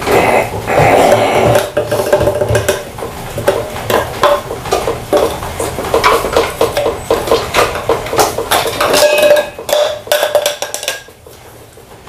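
Crow pecking and knocking at a plastic tray and toys on a wooden pallet: a rapid, irregular clatter of knocks and clicks, thinning out shortly before the end.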